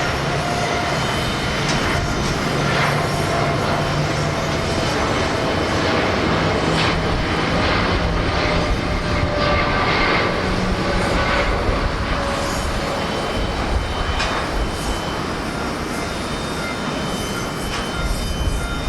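Jet airliner's engines at takeoff thrust: a loud, steady noise with a faint tone that falls slowly in pitch. Gusty wind rumbles on the microphone.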